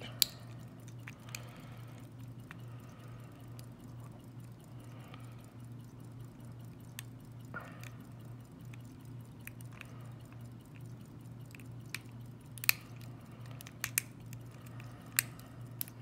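Scattered light clicks and ticks of a hook pick and tension wrench working the pin tumblers in the keyway of a plastic-bodied Master Lock lockout padlock, over a steady low hum.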